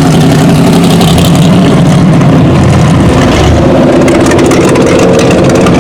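Car engine running loud and close as a car rolls in at low speed, with the engine note shifting higher about three and a half seconds in.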